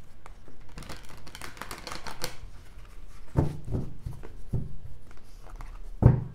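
Hands shuffling a tarot deck: a quick patter of cards sliding and flicking against each other, with a few knocks as the deck is squared on the table, the loudest one near the end.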